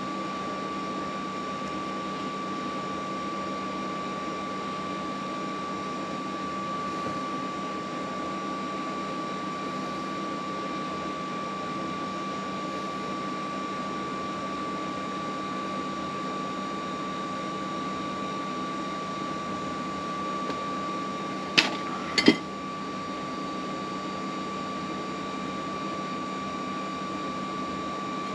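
Steady background machine hum with a constant high whine, and two sharp clicks close together about three-quarters of the way through.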